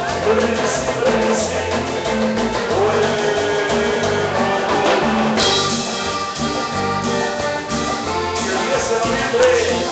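Live Latin dance band music with accordion, keyboards and timbales over a steady beat, recorded close to the stage. The sound grows brighter about halfway through.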